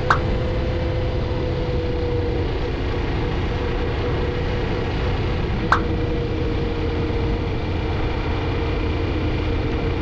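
A road vehicle driving along: steady engine and road noise with a low rumble and a couple of held mid-pitched tones, broken by a single short click about six seconds in.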